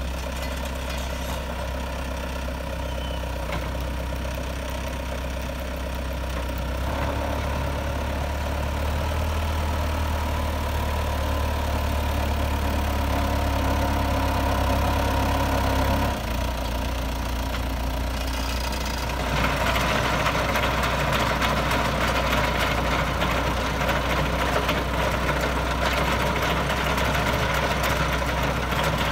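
Goldoni Star 90 compact tractor's diesel engine running steadily under load as it pulls a Cosmeco bed former through loose soil, shaping raised beds. The engine note steps up about a quarter of the way in and eases back a little past halfway. A rougher, hissier churning sound joins about two-thirds of the way in.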